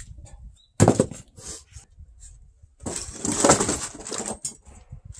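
Old, rotted wooden sill beam being worked loose and shifted on a concrete step: a sharp knock about a second in, then about a second and a half of rough scraping and clattering of wood.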